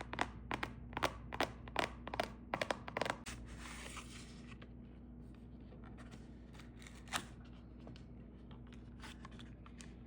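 Product packaging being handled and opened: a quick run of sharp clicks and crinkles, a short tearing swish about three seconds in, then a few scattered clicks. A steady ceiling-fan hum runs underneath.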